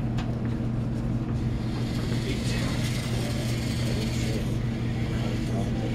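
Servo motors and gears of a small wheeled line-following robot whirring as it drives off across a hard floor, rising about two seconds in. Under it runs a steady low electrical hum.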